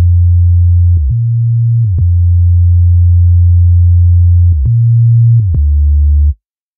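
Synthesized sine-wave sub-bass playing a slow line of long held notes, stepping up and back down about one, two, four and a half and five and a half seconds in, each change with a short pitch glide and a faint click. It cuts off abruptly about half a second before the end.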